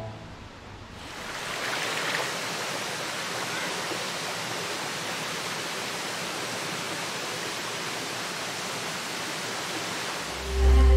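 Steady, even rush of a gorge stream and waterfall, fading in over the first second or so. Near the end a loud, deep drone sets in.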